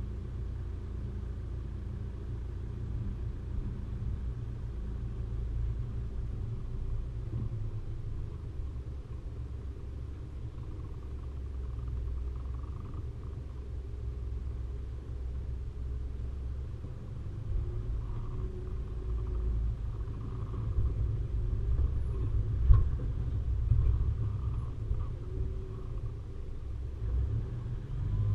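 Low, steady rumble of a vehicle driving, with a single sharp knock about two-thirds of the way through.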